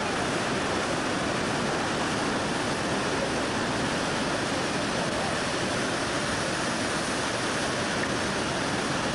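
The Cleddau River's white water rushing and churning through a narrow rock gorge, a steady, unbroken rush.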